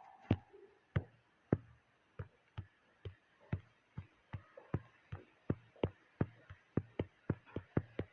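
A series of sharp knocks or clicks, evenly spaced and speeding up steadily from about two a second to about four a second.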